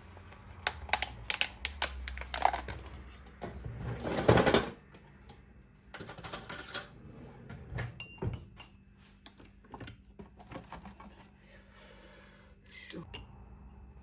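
Irregular clicks and taps of small objects being handled, with a louder rustling burst about four seconds in.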